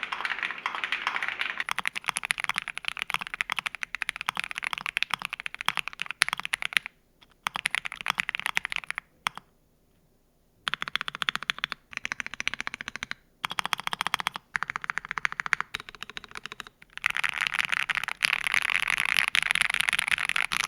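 Akko ACR Pro Alice Plus mechanical keyboard with lubed Gateron CJ linear switches, PE foam and case foam, typed on fast in a steady stream of keystrokes. The typing pauses briefly about seven seconds in and for about a second and a half around the ten-second mark.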